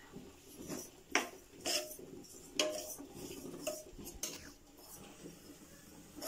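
A steel spatula clinking and scraping against a kadai while stirring grated carrots simmering in milk, about six sharp metallic knocks at irregular intervals, each with a brief ring.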